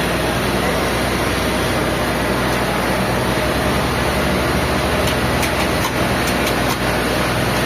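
Heavy sawmill machinery running steadily with a low engine hum, with a few faint clicks about five to seven seconds in.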